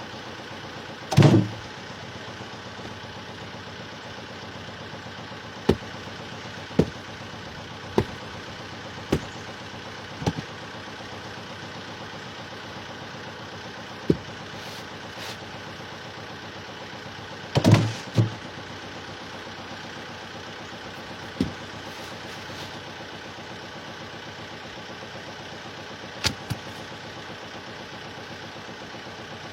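A steady motor hum with irregular sharp knocks and clicks over it. Two louder thumps come about a second in and just past the middle.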